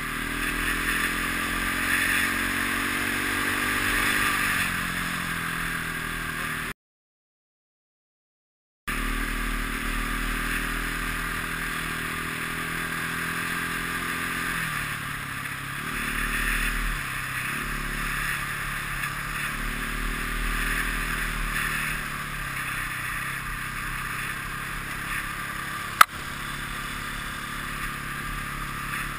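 Enduro motorcycle engine under way on a dirt track, climbing in revs over the first few seconds, then running steadily with a couple of drops in revs through the middle, over a steady rush of wind noise. The sound cuts out completely for about two seconds early on, and there is one sharp click near the end.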